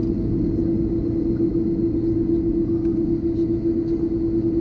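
Cabin noise inside an Airbus A330-200 taxiing with its engines at idle: a steady low rumble with a constant hum.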